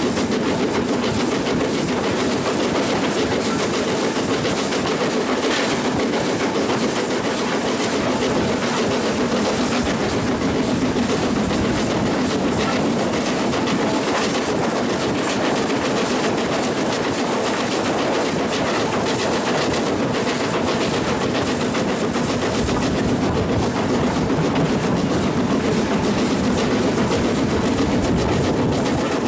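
BR Standard Class 4MT 4-6-0 steam locomotive No. 75078 running along the line: a steady, loud running noise from its wheels and motion on the track, heard from the cab side.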